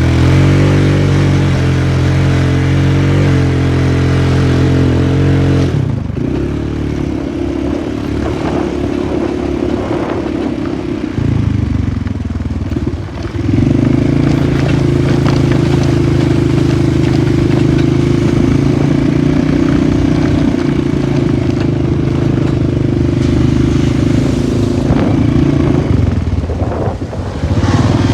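Polaris 450 ATV engine running under steady throttle, easing off about six seconds in with rattling and clatter for several seconds, then pulling steadily again from about halfway, with a brief dip near the end.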